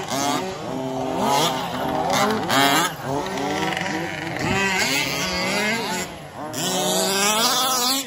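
Several radio-controlled 4WD buggies racing on a dirt track, their motors repeatedly revving up and dropping back as they accelerate and brake around the course.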